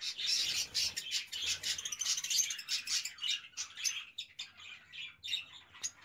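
Young budgerigars chirping and chattering: a steady stream of short, quick, high chirps from several birds.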